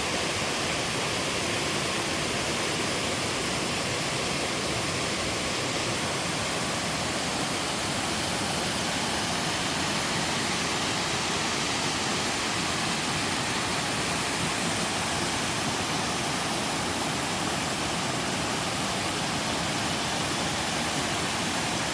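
Two-tiered mountain waterfall pouring into a valley stream: a steady, even rush of falling water with no breaks.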